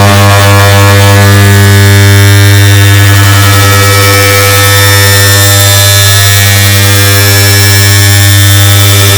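Air conditioner start-up sound stacked many times over into one very loud, steady, buzzing electric hum with many overtones. It cuts in abruptly after a brief silence.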